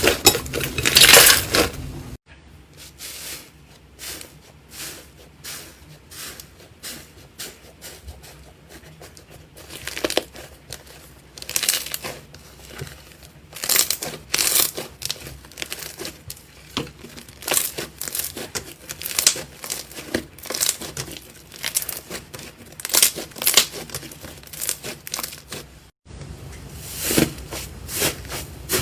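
Slime being pressed and poked, giving a run of crackling, popping clicks. The sound breaks off abruptly twice, where one clip gives way to the next.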